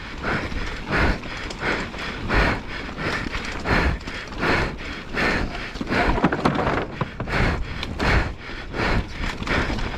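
Hard, rhythmic panting of a downhill mountain biker at race effort, about two breaths a second, over the continuous rattle and rumble of the bike and tyres on a rough dirt trail.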